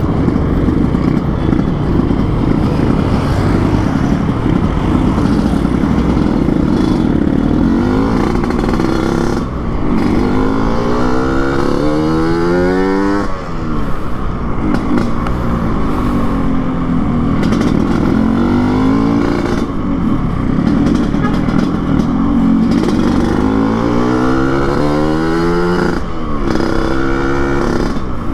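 Yamaha RX-King two-stroke single-cylinder engine, exhaled through a chrome under-slung open exhaust with an open air filter, tuned for the raspy 'ngorok' note, under way on the road. It runs at a steady pace, then several times revs up with a climbing pitch that drops sharply at each gear change, about ten, thirteen and twenty-six seconds in.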